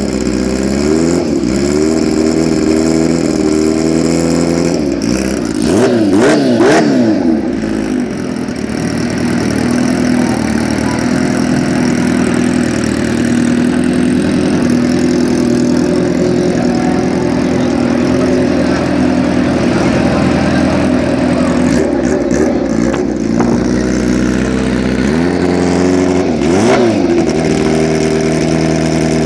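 Kawasaki Ninja H2's supercharged inline-four engine running at a steady idle, with short bursts of revving about six seconds in and again near the end.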